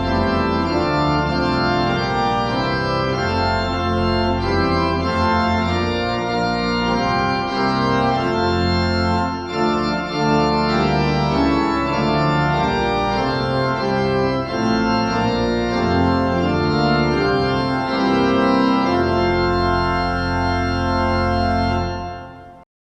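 Organ playing slow, sustained chords that change every second or so, fading out and stopping shortly before the end.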